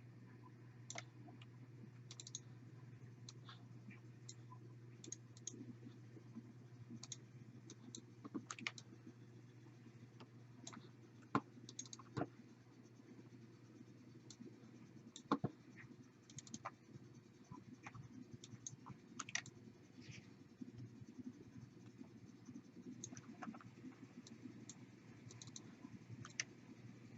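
Faint, irregular clicking of a computer mouse and keyboard, a few clicks a second with a couple of louder ones, over a low steady hum.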